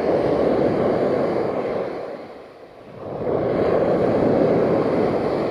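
Sea surf rushing up and washing over the beach in two swells, the second building about three seconds in.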